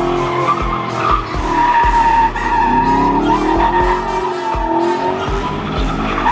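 Muscle car spinning donuts: tires squealing in a wavering squeal while the engine revs up and down, under background music with a steady beat.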